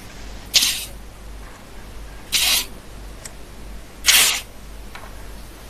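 Three short rustling noises about a second and three-quarters apart, over a low steady hum.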